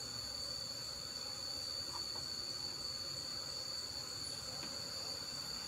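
Steady, shrill insect chorus: one unbroken high-pitched tone with a fainter, higher tone above it.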